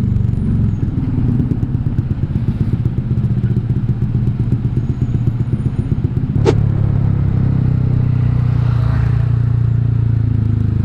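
Honda Vario 150 scooter's single-cylinder engine running through an R9 Alpha Series aftermarket exhaust with the dB killer removed, as it is ridden. For the first several seconds the exhaust note is choppy and pulsing; about six and a half seconds in there is one sharp click, and the engine then settles into a steady drone.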